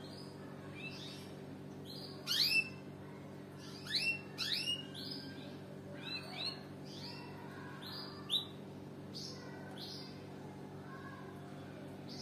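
Canary giving short, high chirp calls, one after another with brief gaps, some in quick pairs. The loudest come a couple of seconds in, around four seconds in, and once more near eight seconds. A steady low hum runs underneath.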